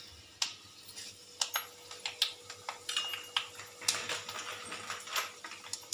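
Mustard seeds popping in hot oil in a kadai as they are tempered: irregular sharp pops and crackles, a few a second.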